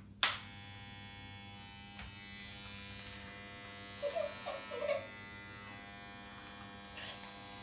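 Corded electric hair clippers switched on with a sharp click, then buzzing steadily while cutting hair.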